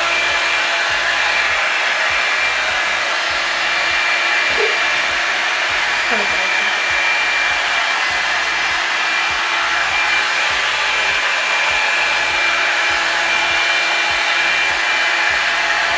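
Revlon One-Step hot-air brush dryer running steadily on its low setting, a continuous rush of blowing air with a faint high whine from the motor.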